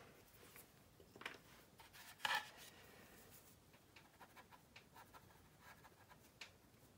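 Near silence with a few faint scattered scratches and soft taps: a cotton swab dabbing and rubbing oil paint onto a plastic scale model's wing root.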